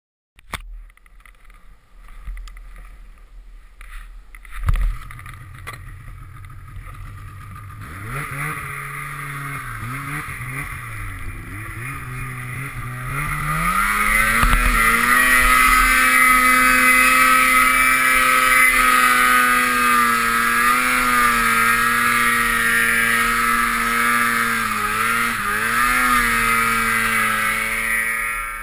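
Snowmobile engine, the two-stroke of a Polaris RMK Assault, revving with the throttle as the sled ploughs through deep powder. It climbs sharply to high revs about thirteen seconds in and holds there with small dips. Before the engine comes in there are a few knocks and a loud thump about five seconds in.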